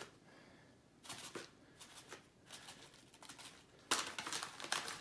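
Light brown soft sugar shaken from its packet into a plastic mixing bowl: the packet rustling and the sugar falling in, in several short bursts, the loudest a little before four seconds in.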